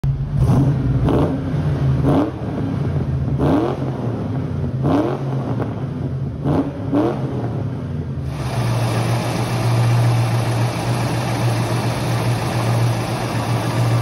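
Ford Mustang GT's 5.0 V8, on a MagnaFlow cat-back with H-pipe and headers, idling and being blipped repeatedly, each rev rising and falling quickly, echoing in a concrete tunnel. About eight seconds in, the sound changes to a steady, hissier engine noise with no more revs.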